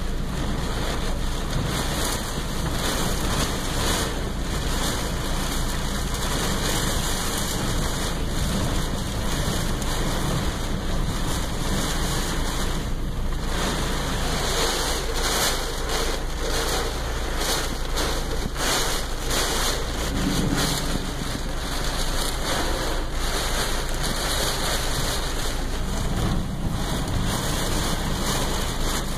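Heavy rain falling on a car's roof and windows, heard from inside the cabin: a loud, steady hiss with a dense patter of drops striking the car.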